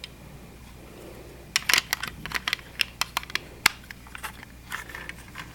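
Plastic Lego pieces clicking and clattering as a built Lego model is handled, with a quick irregular run of clicks starting about one and a half seconds in and thinning out near the end.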